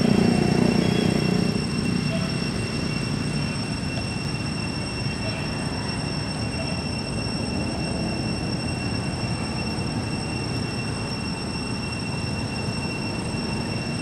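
Steady low engine rumble of nearby traffic, louder in the first two seconds and then level, with thin constant high-pitched tones above it.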